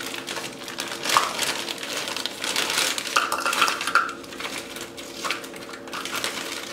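Frozen strawberries being scooped out of a plastic bag into a cup: a run of irregular hard clacks and clinks of frozen fruit, with the bag rustling.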